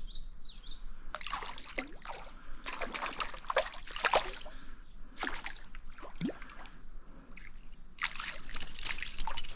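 Water splashing and trickling, with irregular small splashes at the surface of a stream.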